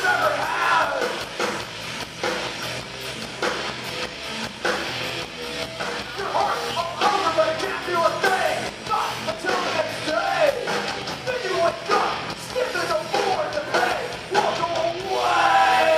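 Live crossover thrash band playing: vocals over electric guitars and rapid drum hits, heard through a camera microphone in the crowd.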